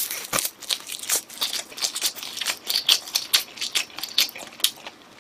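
Close-up chewing of crunchy fried chicken: a quick, irregular run of sharp crackling clicks, fading near the end.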